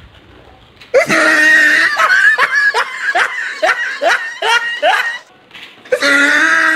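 A girl laughing loudly in rapid, high-pitched 'ha-ha' pulses, about three a second. She breaks off briefly, then laughs again near the end.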